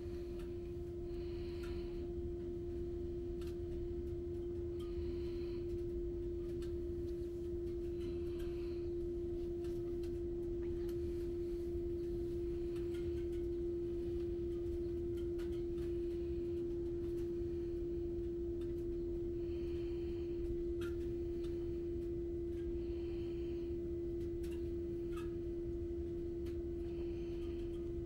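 Inside a city bus: a steady single-pitched hum over a low, constant engine rumble, with faint short high sounds every few seconds.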